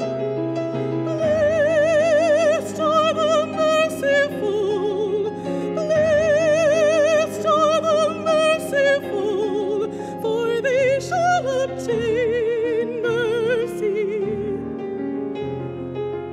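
Solo soprano singing a slow, sustained melody with wide vibrato over piano accompaniment, in phrases with short breaths between them. The voice stops about two seconds before the end, leaving the piano playing alone.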